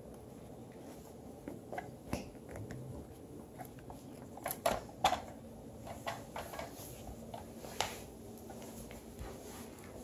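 Puppies moving and mouthing close by: scattered soft clicks and rustles, with a few sharper clicks about halfway through and again near eight seconds, over a faint steady hum.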